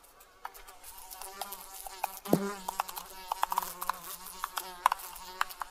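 An insect buzzing close by, coming and going, with sharp clicks and taps scattered throughout; the loudest click comes a little over two seconds in.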